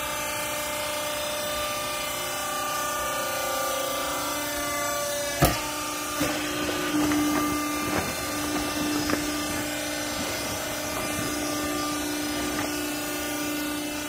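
Hydraulic power unit of a vertical clothes baler humming steadily. About five seconds in there is one sharp knock, then a few lighter knocks and handling sounds as the baling chamber is loaded.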